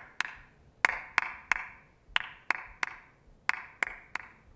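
Recording of two people clapping a simple two-part rhythm together, played back in mono. Sharp hand claps fall in groups of three, and the pattern repeats about every 1.3 seconds. The two parts hold together as one steady composite rhythm.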